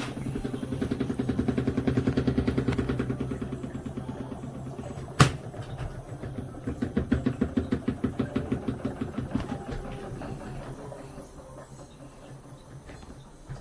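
Compact twin tub washing machine's wash cycle running: a steady motor hum with fast rhythmic churning of water, in two surges with a lull and a sharp click about five seconds in between them, fading lower near the end.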